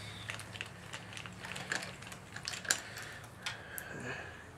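Irregular light clicks and taps of hand tools being worked at the spark plug holes of a car engine's cylinder head, over a steady low hum.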